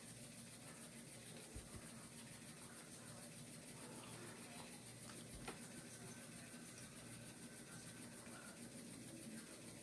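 Faint chewing of chicken and waffles, with soft wet mouth sounds and a couple of light knocks.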